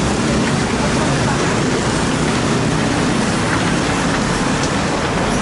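Steady city street traffic noise, an even wash of engine and tyre sound with no single event standing out.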